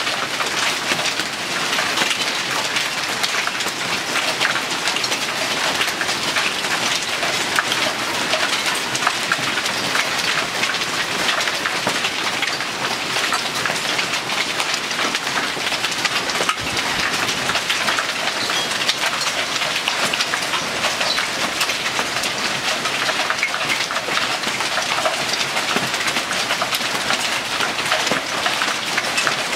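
Heavy hail pelting down in a dense, steady clatter of countless small impacts, mixed with rain.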